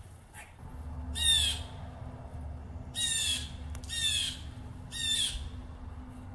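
Blue jay giving four harsh, falling 'jay' calls about a second apart.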